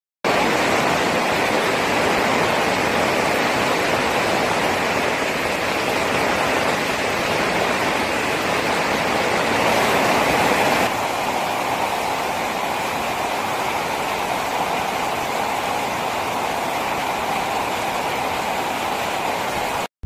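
Heavy monsoon rain drumming on the plastic-film roof of a vinyl greenhouse, a dense steady downpour that drops a little in level about eleven seconds in.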